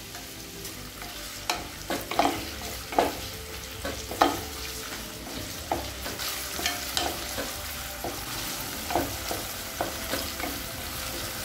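Freshly added sliced onions sizzling in hot oil in a kadai while a spatula stirs them. The spatula scrapes and clacks against the pan about once a second.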